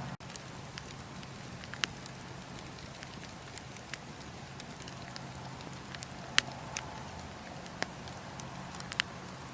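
Wood bonfire crackling, with a few sharp pops standing out over a steady low bed; the loudest pop comes a little past the middle.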